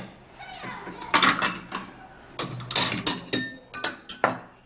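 Kitchenware being handled: a series of separate clinks and knocks of glass and dishes, about half a dozen sharp hits.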